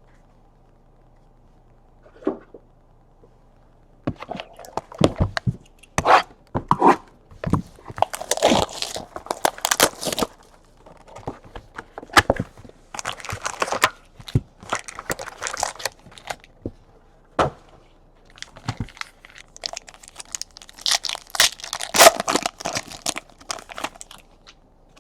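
Trading-card pack wrappers being torn open and crinkled, starting about four seconds in as an irregular run of sharp rips and crackles.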